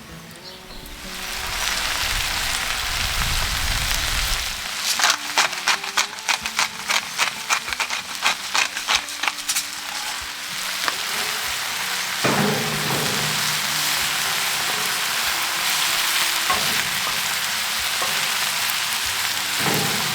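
Food frying and sizzling in a hot cast-iron potjie. The hiss starts about a second in, with a few seconds of quick spitting crackles in the middle.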